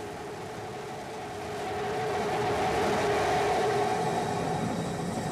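Rocket engines of a SpaceX Starship prototype firing, heard on the broadcast feed as a rumbling roar with a steady hum in it. It swells about two seconds in.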